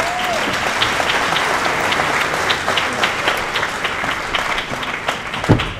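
Audience applauding, a dense run of handclaps that eases off toward the end. A single loud thump comes about five and a half seconds in.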